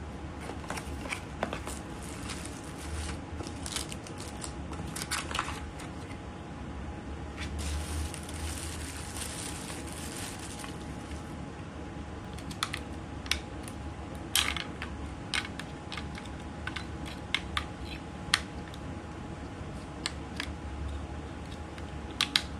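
Small plastic objects being handled by hand: scattered sharp clicks and taps, with two stretches of crinkling, one about five seconds in and a longer one from about seven to ten seconds, over a faint steady hum.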